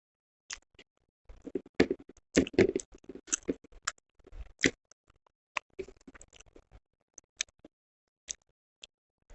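Close-miked chewing and mouth sounds of a person eating: a dense run of sharp, wet clicks and crackles in the first half, then scattered single mouth clicks.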